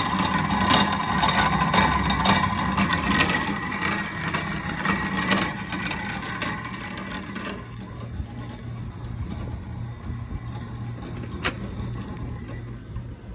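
HVAC unit with a bad pulley running: a steady high whine with irregular clicking over a low hum. After about seven and a half seconds the whine and clicking fade and a quieter low steady hum remains, with one sharp click near the end.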